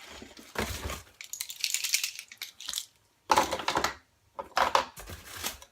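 Rummaging through a box of small tools and packaged items: several bursts of rustling and rapid clicking and rattling of small hard parts, separated by brief pauses.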